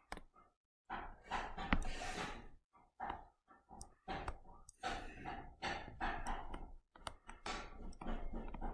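Soft breathing and sighs close to the microphone, in short puffs with pauses, mixed with a few light taps and scratches of a stylus on a touchscreen.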